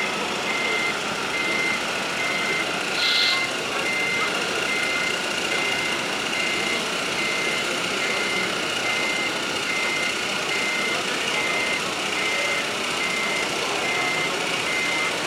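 Reversing beeper of a radio-controlled model heavy-haulage truck: one steady high beep repeating about twice a second over constant background noise. A brief higher-pitched sound stands out about three seconds in.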